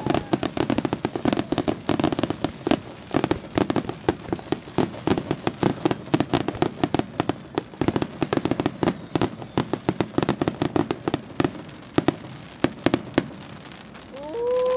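Aerial fireworks going off in a dense, rapid barrage of bangs and crackling pops. They thin out about three-quarters of the way through to a few loud single reports, then fall quieter near the end.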